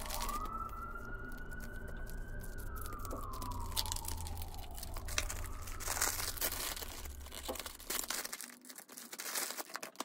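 A siren wailing, one slow rise in pitch and then a long fall over about five seconds, over a low rumble. From about six seconds in, crinkling of a clear plastic bag and paper being handled.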